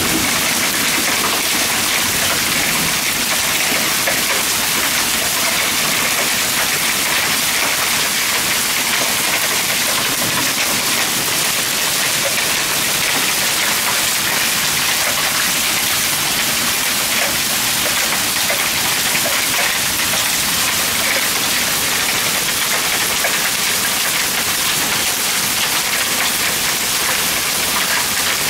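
Hailstorm: hail and heavy rain pelting the ground and the house, a dense, steady hiss of countless small impacts.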